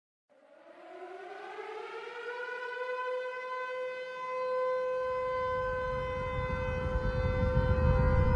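Civil defense siren winding up: one wailing tone with a stack of overtones that rises in pitch over the first couple of seconds, then holds steady while growing louder. A low rumble builds underneath it from about five seconds in.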